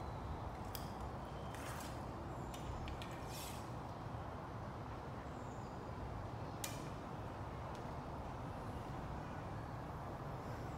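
A few faint clicks and rustles of an archer handling a recurve bow and arrow while setting up a shot, heard over a steady low background rumble.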